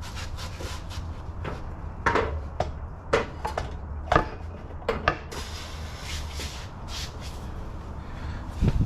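Tools and parts being handled during a car transmission installation: about five short sharp knocks and clicks over a low steady rumble, followed by a stretch of hiss.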